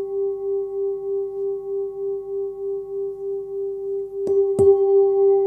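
13 cm Tibetan singing bowl ringing with a steady tone near 396 Hz (G) and a slow, regular wavering pulse, with fainter overtones above. A little after four seconds in, two light knocks come as fingers touch the inside of the bowl, and the ringing swells louder afterwards.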